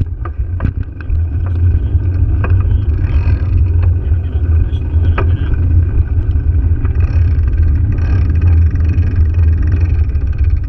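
Wind and road rumble on a bicycle-mounted action camera's microphone while riding over cracked asphalt: a steady, loud low rumble with scattered sharp clicks.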